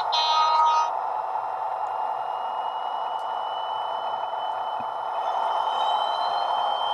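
HST Paxman Valenta engine sound played by a Hornby HM7000 Bluetooth sound decoder through a model locomotive's small speaker. It is a steady engine drone with a thin whistle that rises slowly in pitch from about two seconds in, and a second, higher whistle joins near the end. A brief two-note tone sounds right at the start.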